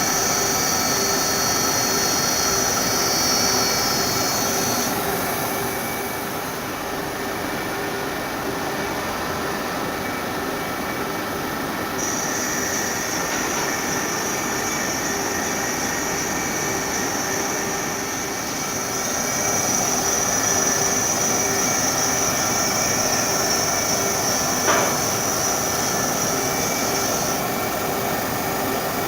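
Rubber-grooving machine running on a rubber roller covering: a steady mechanical noise with a high whine that drops out about five seconds in, comes back about twelve seconds in, and stops near the end. A single sharp click a little before the end.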